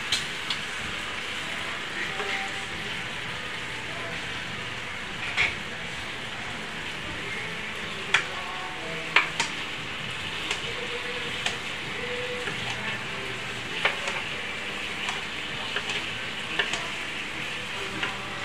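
Soy-glazed pork belly sizzling steadily on a round stovetop grill pan over a gas burner. Sharp metal clicks and scrapes from tongs and a fork against the pan cut in every second or two.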